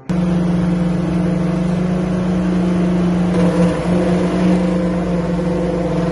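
Slipform concrete curb machine running as it extrudes a kerb. It makes a loud, steady mechanical drone with a strong, even hum, and it cuts in suddenly at the start.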